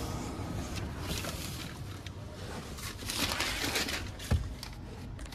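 Rustling and handling noise as a person climbs into the back seat of a car, with a single dull thump about four seconds in.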